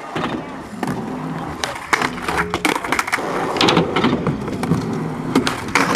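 Skateboards rolling on concrete, with repeated sharp clacks of boards popping and landing.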